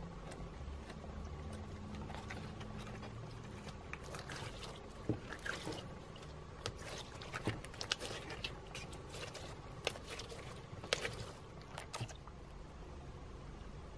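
Clear slime loaded with glitter, beads and square sequins squeezed and kneaded by hand, giving irregular small sticky clicks and pops, most of them between about four and twelve seconds in, over a faint low hum.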